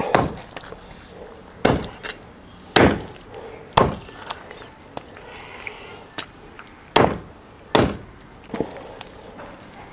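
A cleaver chopping raw chicken into pieces on a wooden block: a series of sharp, irregularly spaced chops, about six loud strikes with a pause in the middle.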